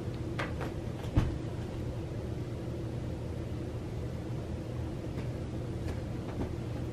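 Steady low hum of a machine running in the room, with a few light ticks and one sharp thump about a second in as a cat bats at a swinging wand toy on a carpet.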